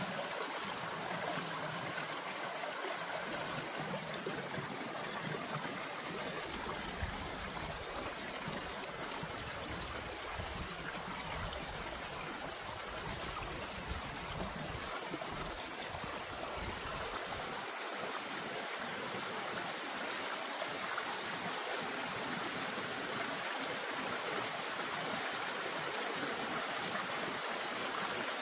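Steady running water, like a stream trickling, as a continuous even rush with a faint high steady tone above it.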